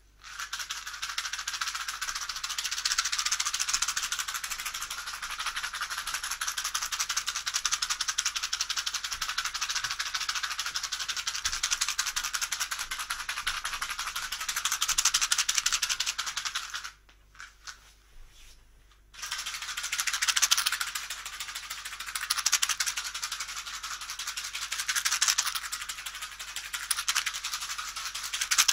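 A continuous rapid rattling buzz that stops for about two seconds two-thirds of the way through, then starts again.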